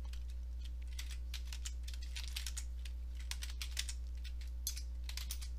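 Computer keyboard typing: an uneven run of key clicks as a shell command is typed, over a steady low electrical hum.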